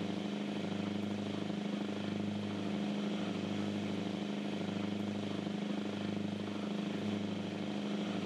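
Cruise boat's engines running steadily under way: a low drone that throbs in a slow, even beat about once a second.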